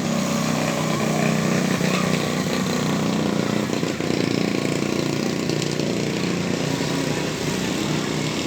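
A motor or engine running steadily.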